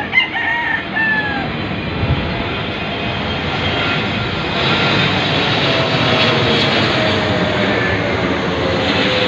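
Twin-engine jet airliner flying low overhead, its engine noise growing louder over the last few seconds with a slowly falling whine. A rooster crows once at the start.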